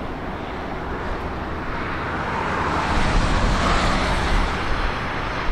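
Steady rushing rumble of a passing vehicle, growing louder about two to three seconds in.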